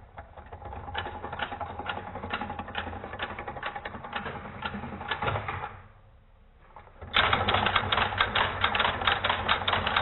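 A rotary telephone dial is worked while a Strowger step-by-step switch clicks through its steps in response to the dial pulses. There is a run of rapid mechanical clicking, a brief lull about six seconds in, then louder, faster clicking from about seven seconds.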